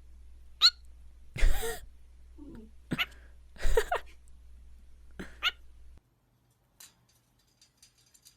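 A pet bird's short squawks and chirps, about five separate calls with one raspier one among them. The sound cuts out abruptly about six seconds in.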